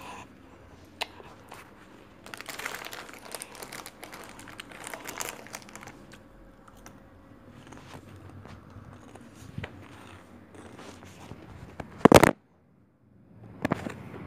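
Rustling and crinkling handling noises with scattered clicks. A loud knock comes about twelve seconds in, then the sound cuts out completely for about a second.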